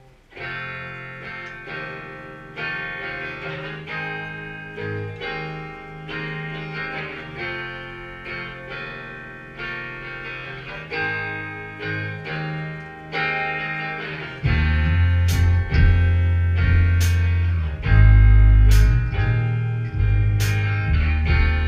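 A rock band playing: an electric guitar starts alone with picked notes and chords, then about fourteen seconds in the bass guitar and drums come in with cymbal crashes and the music gets louder.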